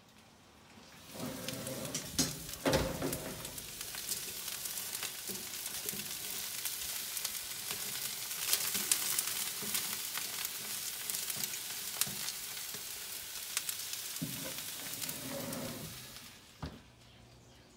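Cauliflower florets sizzling in oil on a hot foil-lined oven tray while they are turned with metal tongs, with scattered clicks and clanks of tongs against tray and rack. The sizzle comes in about a second in as the oven door opens and drops away near the end as the door shuts with a click.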